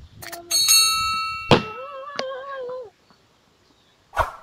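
Subscribe-button animation sound effects: a quick click, then a bell-like notification ding ringing for about a second, followed by a wavering held tone. A short sharp sound comes near the end.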